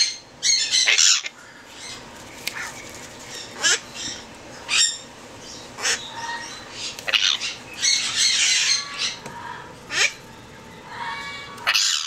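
Young hand-fed blue-crowned conure giving harsh, short squawks over and over, in protest at being held and having its chest feathers plucked.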